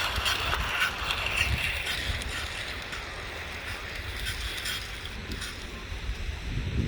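Wind blowing over the microphone: a steady low buffeting rumble with a hiss above it, on a windy day for kite flying.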